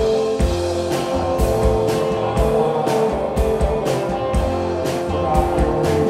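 Live rock band playing: electric guitars holding ringing notes over a steady drum-kit beat with cymbals.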